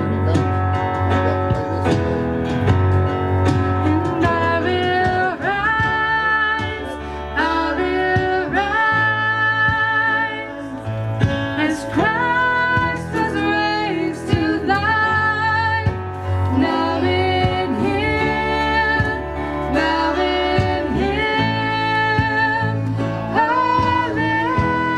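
Live worship music: a singer's voice carrying a melody over guitar and a steady bass line.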